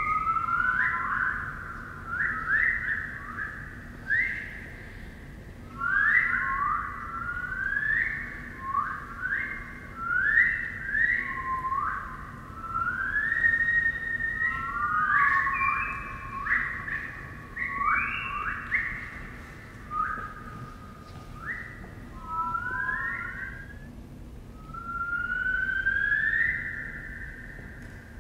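Several high whistling tones overlapping, each sliding up into a held note, forming a slow, wandering melodic line.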